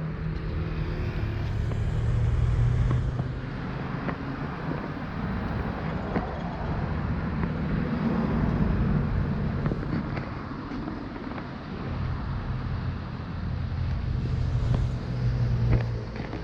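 Road traffic: motor vehicles running past, the engine and tyre noise swelling and fading several times.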